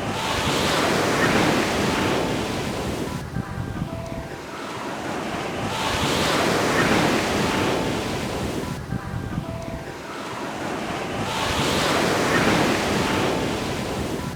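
Ocean surf breaking on a beach, each wave swelling up and washing back out, three surges about every five and a half seconds.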